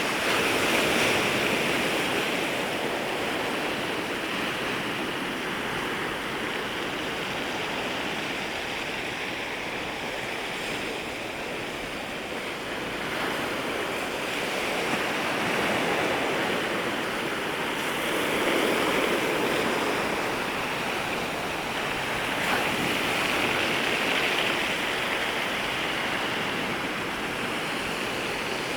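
Sea waves breaking and washing up on the shoreline: a continuous rush of surf that swells louder every few seconds as each wave comes in.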